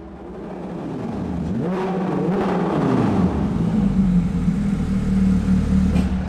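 Porsche 911 GT3 RS flat-six engine revving, its pitch rising and falling over the first few seconds and growing louder, then running steadily as the car rolls up in a parking garage.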